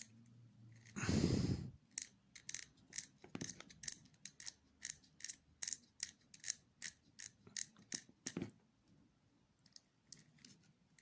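Handling of an RC car's drivetrain parts while greasing the gears: a brief louder rustle about a second in, then a run of short clicks and scrapes, about two to three a second, that stops a couple of seconds before the end.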